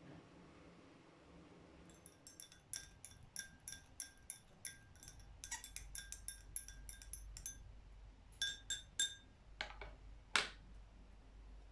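Light, ringing clinks on glass, about three or four a second for several seconds. After a short pause come three more, then two louder knocks near the end.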